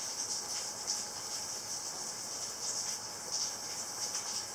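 Steady high-pitched insect buzzing that swells and fades slightly, with a few faint soft ticks beneath it.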